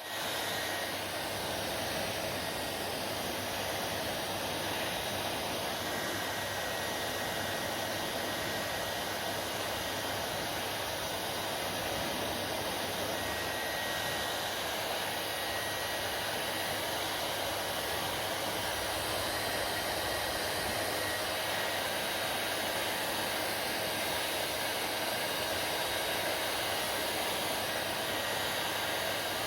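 Hair dryer blowing steadily: a constant rush of air that starts right at the beginning and holds one level, with a faint steady tone in it.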